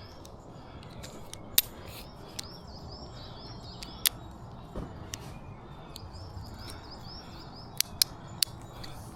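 A small bird singing three bouts of quickly repeated high chirping notes over faint outdoor background noise, with a few sharp clicks in between, several of them close together near the end.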